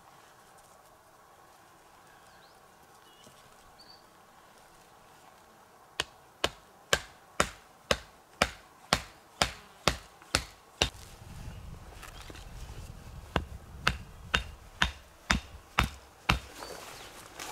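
Wood being chopped: a steady run of sharp blows about two a second starting about six seconds in, a short break, then a second run near the end. A few faint bird chirps are heard before the chopping.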